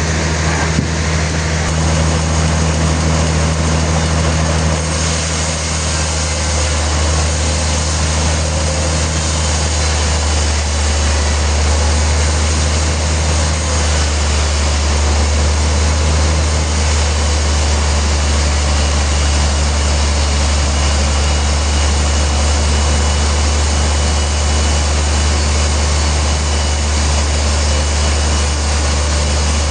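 Heavy sawmill machinery running steadily: a deep motor drone under a broad, even hiss.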